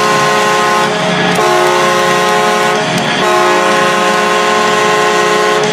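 Hockey arena goal horn sounding in long blasts, each a chord of several steady tones, with short breaks about a second in and about three seconds in.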